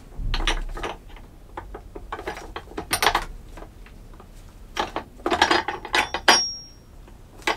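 Hard plastic office-chair parts clicking, scraping and rattling as the corrugated cover over a Mainstays chair's gas cylinder is forced and snapped into place, in irregular bursts. A brief high squeak comes a little after six seconds in.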